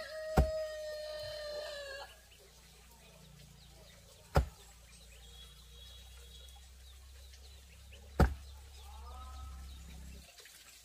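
A rooster crowing, its long call holding and then falling away about two seconds in, with a shorter, fainter fowl call near the end. Three sharp knocks, about four seconds apart, are as loud as the crow.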